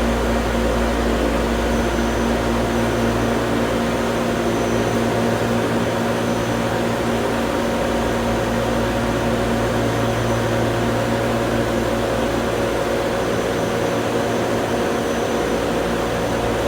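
Air-conditioning machinery running with a loud, steady hum and low drone.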